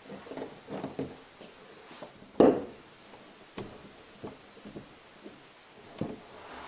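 Bar clamps being worked on a wooden sled fence: a few light clicks and knocks of metal and wood. The loudest is a sharp knock about two and a half seconds in.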